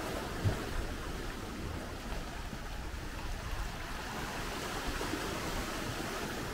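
Small sea waves washing steadily on the beach, with a low wind rumble on the microphone and a brief thump about half a second in.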